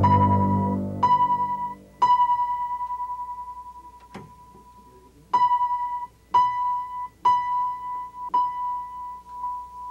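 Grand piano: a single high note struck again and again, about eight times at uneven intervals. Each strike rings briefly and then stops, except one that rings on for about two seconds.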